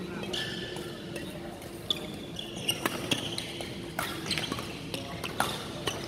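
Badminton rally: rackets striking the shuttlecock in a series of sharp hits, most of them in the second half, with shoes squeaking on the court floor.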